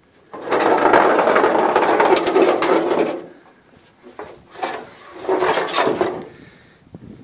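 VW T4 engine undertray being dragged out from under the van across asphalt: a long loud scrape, a knock, then a second shorter scrape.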